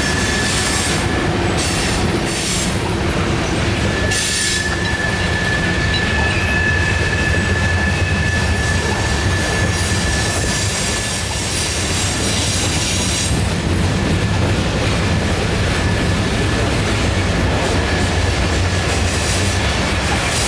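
Freight train cars rolling past on a curve: a steady rumble of steel wheels on the rails with a high, steady wheel squeal through most of it. A few sharp clanks sound in the first few seconds.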